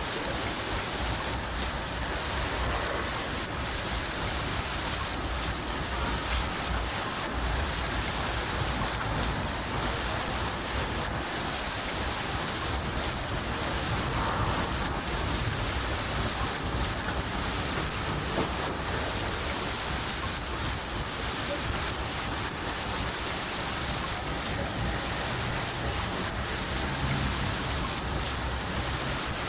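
A cricket chirping steadily, about three high chirps a second, breaking off briefly about twenty seconds in, over the steady hiss of rain and a low rumble of thunder.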